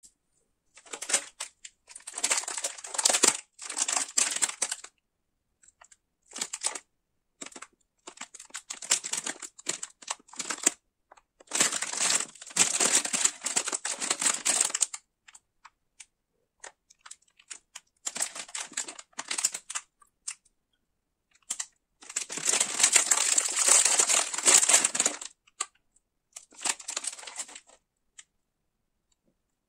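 A cereal bar's plastic wrapper crinkling in repeated bursts as gloved hands pick it up and turn it over, with short silent gaps between the bursts.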